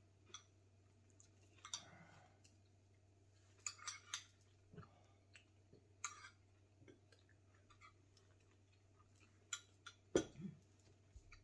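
Faint table sounds of eating: scattered small clicks and crackles of crusty, air-fryer-toasted baguette being torn and spoons tapping ceramic bowls, with a sharper knock about ten seconds in.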